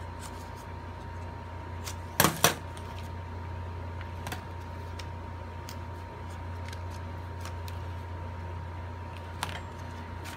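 Scissors snipping yellow cardstock, a few scattered sharp clicks, with two loud clacks close together about two seconds in as the scissors are put down on the table. A steady low hum runs underneath.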